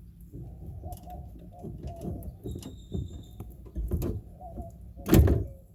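Handling noises from hands working with small car parts: a run of knocks, scrapes and clicks, with a brief high squeak near the middle and a loud thump about five seconds in.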